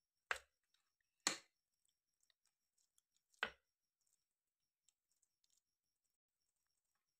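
Metal spoon knocking against a tray while pressing and spreading thick barfi mixture flat: three short knocks, the second about a second after the first and the third about two seconds later, with only faint scraping ticks between.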